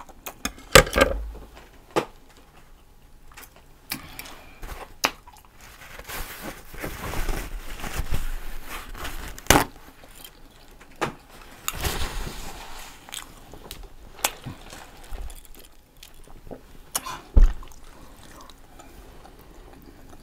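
Close-miked handling sounds: a paper sandwich wrapper rustling and crinkling in two stretches, about six seconds in and again near twelve seconds, among scattered sharp clicks and taps.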